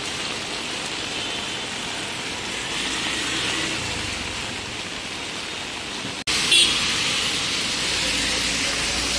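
Heavy rain falling steadily on a street. About six seconds in the sound cuts abruptly to a louder rush of rain and traffic on a wet road, with a low rumble and a brief sharp burst just after the cut.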